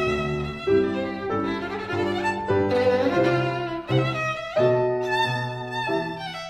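Background music: a violin melody of held, wavering notes over a low accompaniment, changing note every half second to a second.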